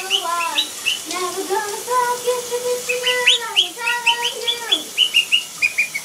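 Quaker parrot (monk parakeet) whistling and singing a learned song tune: a few sliding notes, a long held note, then a quick run of short rising chirps in the second half.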